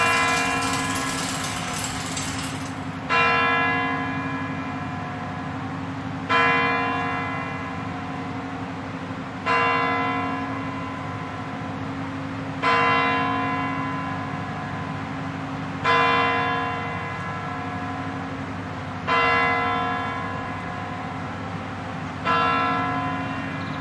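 The Kremlin's Spasskaya Tower clock striking the hour on its big bell. Eight slow strokes come about three seconds apart, each ringing out and fading before the next.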